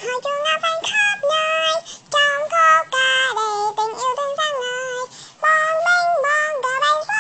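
A very high-pitched voice singing a melody unaccompanied, in held notes that slide from pitch to pitch, with short breaks between phrases.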